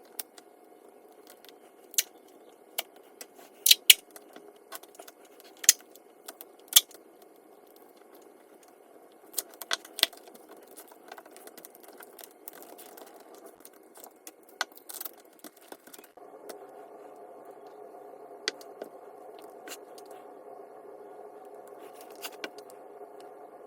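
Scattered sharp clicks and taps of hard parts being handled during a workbench build, most of them in the first half, over a steady hum that gets louder about two-thirds of the way in.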